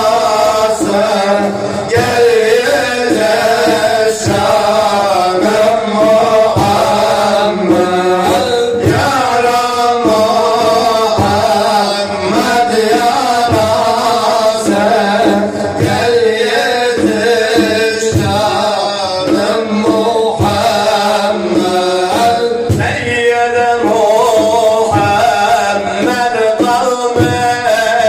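A man's voice singing a Turkish Sufi ilahi through a microphone, in a wavering, ornamented melody over a steady drum beat.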